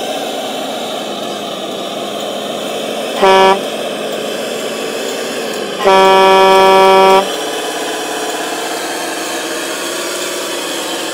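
Truck horn from an RC logging truck's sound module, sounding twice: a short toot about three seconds in, then a longer steady blast of about a second and a half. Under it, the module's steady diesel-engine running sound.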